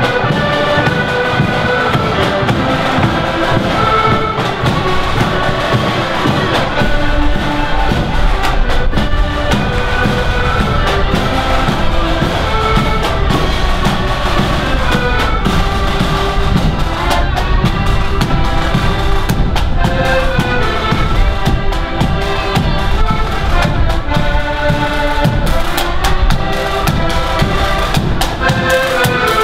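Marching accordion band playing a tune together, the accordions carrying the melody over drums beating a steady march rhythm.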